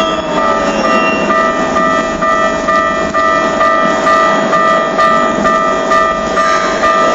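Railway level-crossing alarm ringing about twice a second over the steady rumble of a Keikyu train. The whine of the train's inverter falls in pitch as it brakes and fades out about a second in.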